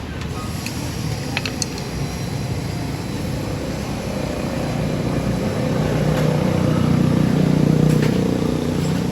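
A car running with road and engine noise, swelling louder to a peak with a steady low hum about seven to eight seconds in, then easing off a little; a few light clicks come early on.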